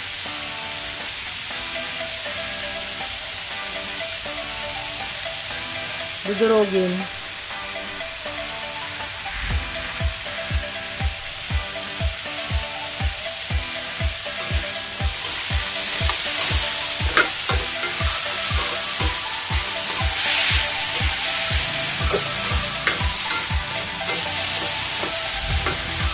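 Diced potatoes sizzling in hot oil in an aluminium wok, a steady hiss. After about ten seconds a metal spatula starts stirring and scraping the pan, at roughly two strokes a second.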